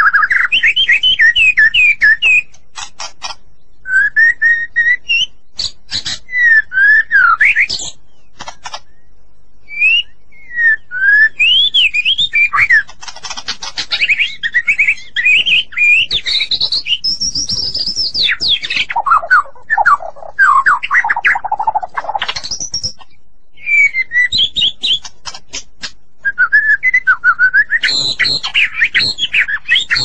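Cucak ijo (green leafbird) singing a long, varied song of quick whistled notes that slur up and down, mixed with fast runs of clicking notes and broken by short pauses.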